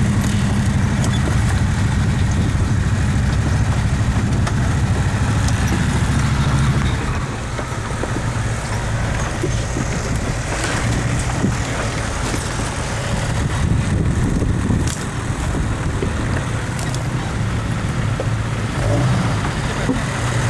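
ATV engines running with a steady low rumble that eases off about seven seconds in, then carries on at a lower level with small rises and falls.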